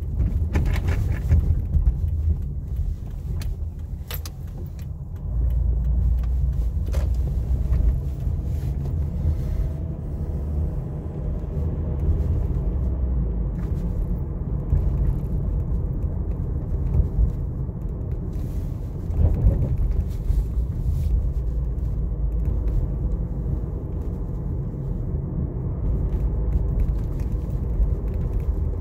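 Car driving slowly through city streets, a steady low engine and road rumble heard from inside the cabin, with a few sharp clicks or small rattles in the first several seconds.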